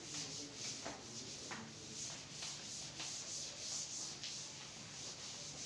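Blackboard duster wiping chalk off a blackboard: soft, repeated back-and-forth rubbing strokes, about two a second.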